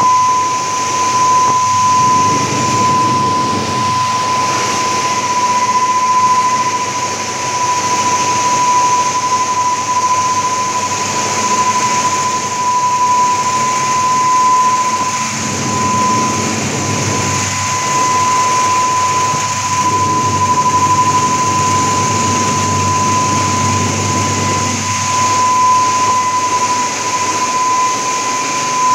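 Radish washing and air-drying line running: a steady industrial machine noise with a constant high-pitched whine.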